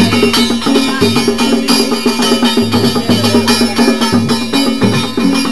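Music with drums and percussion over a steady beat and a held bass line that moves between notes.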